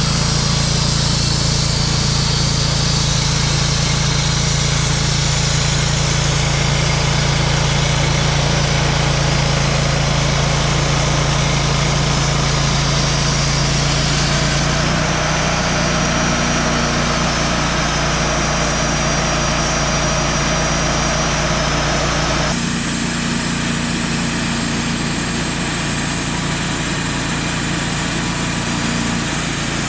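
Engine of a Wood-Mizer LT35 portable sawmill running steadily, its note shifting about halfway through and changing abruptly about three-quarters of the way in.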